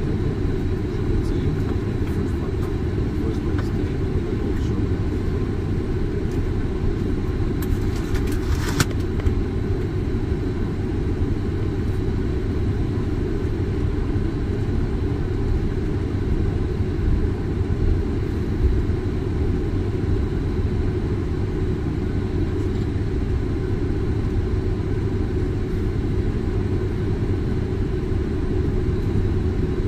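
Steady low rumble inside a Boeing 747 cockpit as the jet taxis after landing: engine noise and ground roll, with a short rattle of clicks about eight and a half seconds in.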